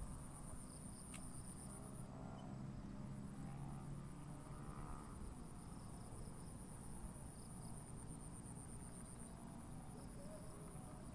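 Insect trilling: one steady, high-pitched continuous note that drops out about two seconds in and resumes a second later, over faint low background noise.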